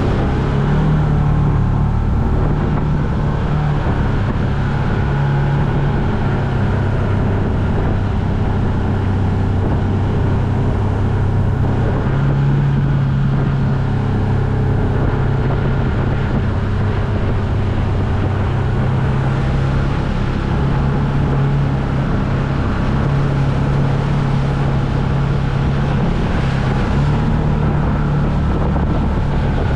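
Polaris RZR side-by-side's engine running steadily, its pitch shifting a little, as it drives through a river. Beneath it is a constant rushing noise, with some wind on the microphone.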